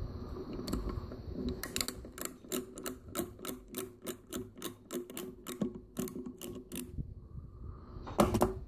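Helicoil thread-insert installation tool being turned out of a steel insert set in hardwood: a steady run of small clicks, about four a second, then a louder knock near the end as the tool comes free.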